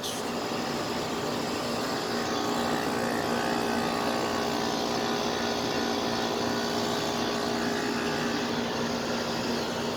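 Lennox air-conditioner condenser unit running: a steady hum with a low tone over an even rushing noise.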